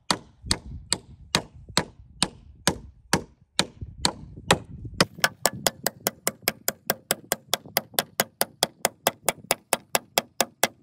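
Hammer driving nails, with steady, evenly spaced blows about two a second. About halfway through the strikes come quicker and sharper, about four a second.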